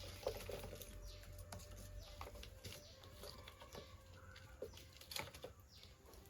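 Birds calling outdoors, a short falling call repeated every second or so, with scattered light clicks and taps of kitchen work.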